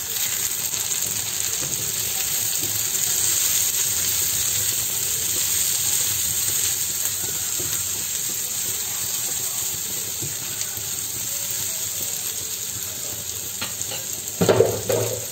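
Sliced onion and green and red bell pepper sizzling in a frying pan as they are stir-fried, a silicone spatula stirring and turning them. A brief louder sound near the end.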